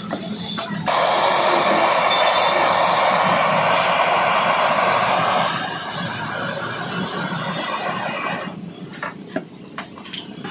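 Gas torch flame hissing steadily, louder for about four and a half seconds from about a second in, then dropping back. Near the end it gives way to a few sharp knocks as the metal radiator is handled.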